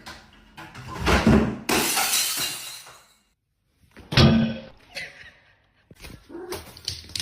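A sudden crash about a second in, followed by shattering and clattering that fade over a couple of seconds, like glass breaking; a second sharp crash comes about four seconds in.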